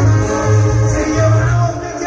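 Live Mexican regional band music: heavy bass notes moving every half second or so under melody instruments.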